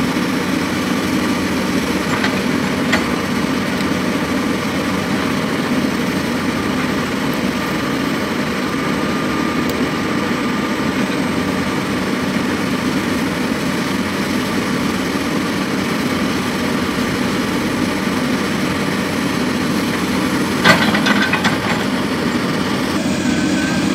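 Komatsu PC200 hydraulic excavator's diesel engine running steadily as it loads soil into a dump truck, with a short clatter near the end.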